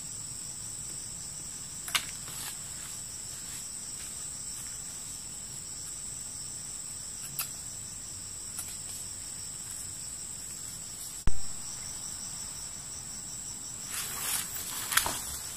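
Steady high-pitched chorus of forest insects, with a few faint clicks, one sharp loud click about eleven seconds in, and a burst of rustling near the end.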